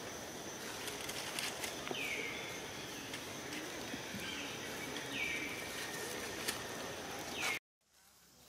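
Forest ambience: a steady high insect drone with a few short, falling animal calls. It cuts off suddenly near the end, leaving much quieter background.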